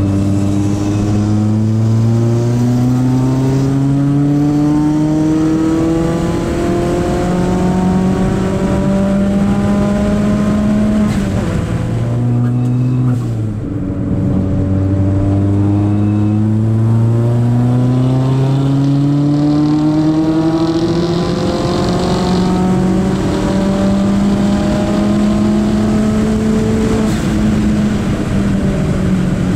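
Tuned turbocharged Ford Fiesta ST engine heard from inside the cabin under hard acceleration, its pitch climbing slowly for about ten seconds. About halfway through it drops briefly as the throttle is lifted, then climbs again and holds steady near the end.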